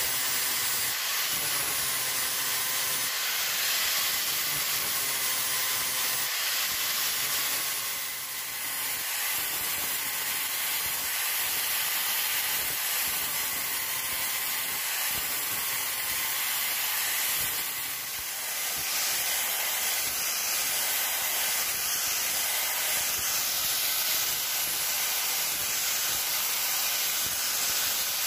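Handheld angle grinder with a sanding disc grinding down a wooden knife handle: a steady high hiss of sanding over the grinder motor's faint whine, whose pitch wavers as the disc is pressed on. The grinding eases briefly about eight seconds in and again about eighteen seconds in.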